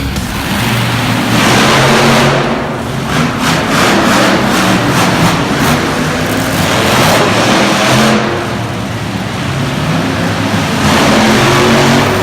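Monster truck engine revving hard in repeated surges, loud, with the noise swelling up about four times.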